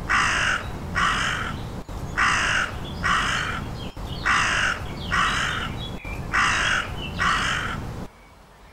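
Crow cawing: eight harsh caws given in pairs, four pairs about two seconds apart.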